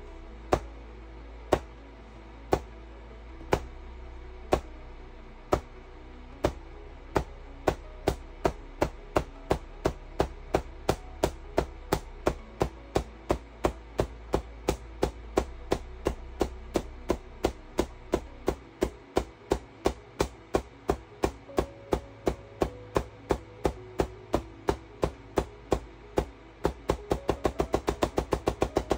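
Pancake-style QCW Tesla coil firing repeated spark pulses, each a sharp crack. They come about once a second at first, speed up to several a second, and turn quicker still near the end.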